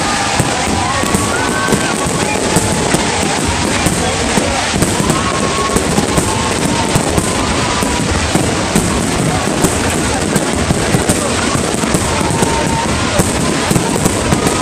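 Fireworks display going off: a continuous dense crackle with many sharp bangs several times a second, and music playing underneath.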